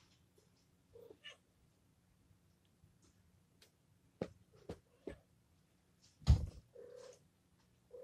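A female cat in heat giving a few short meows, with some sharp clicks and a loud thump about six seconds in.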